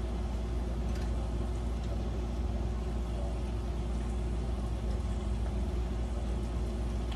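A steady low hum, like a motor or appliance running, with a couple of faint light taps of a spoon in a pie crust about one and two seconds in.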